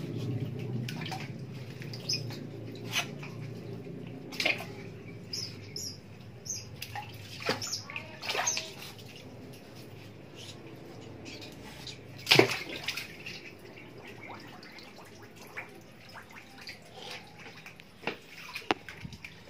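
Water sloshing and splashing as an otter bathes in shallow water, with scattered short splashes and the loudest splash about twelve seconds in.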